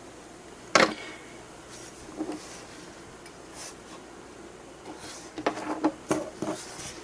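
Spring-loaded click switches of a 3D-printed PETG fidget hexagon being squeezed to preload the springs. There is a sharp click about a second in, a few fainter clicks, then a quick run of clicks near the end.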